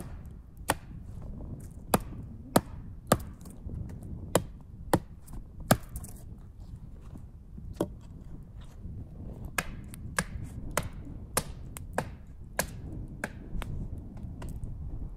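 Wood being chopped with a hand tool: about twenty sharp, separate strikes at an uneven pace of one to two a second, with a pause of nearly two seconds midway.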